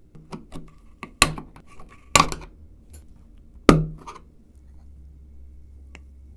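Screwdriver tip prying at the press-fit lid of a small metal paint tin: a run of sharp metallic clicks and knocks, three of them loud, as the lid is levered loose.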